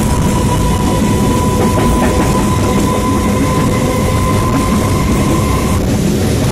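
Passenger train of red coaches passing at speed on the adjacent track, close by: a loud, steady rush of wheels on rail. A steady whine runs through it and cuts off shortly before the end.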